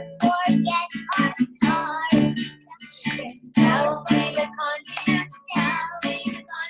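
A young child and a woman singing a children's song about the continents, with guitar accompaniment.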